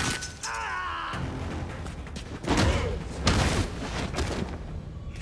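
Animated-film fight sound effects: several hard hits and slashes, the loudest near the start and around two and a half and three and a half seconds in, with a short wavering tone about half a second in, over low background music.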